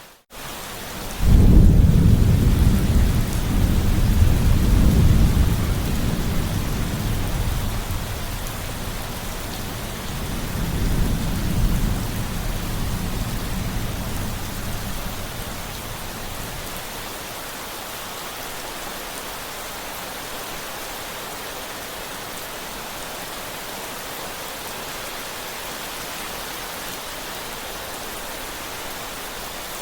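Steady rain with thunder: after a brief cut-out in the sound right at the start, a thunderclap breaks in about a second in and rolls on as a long low rumble. It swells again around ten seconds, then dies away, leaving the rain alone for the second half.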